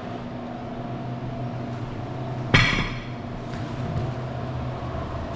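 A single sharp, ringing clank of kitchenware being set down, about two and a half seconds in, over a steady mechanical hum.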